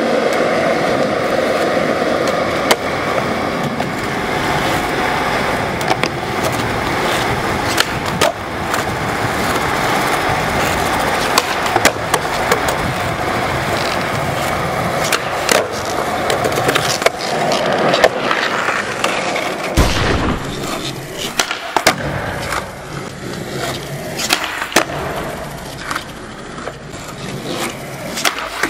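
Skateboard wheels rolling on a smooth concrete floor in a steady rumble, broken by many sharp clacks of the board popping and landing as flatground tricks are tried.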